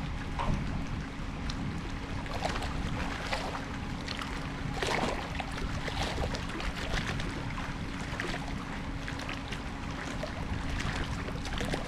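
Wind rumbling on the microphone and small waves lapping and slapping against a concrete seawall in irregular splashes, over a faint steady low hum.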